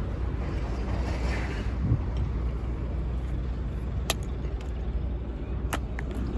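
A pair of high-heeled mule sandals dropped onto an asphalt road: a sharp clack about four seconds in and another near the end, followed by a couple of small knocks as they settle. A steady low outdoor rumble runs underneath.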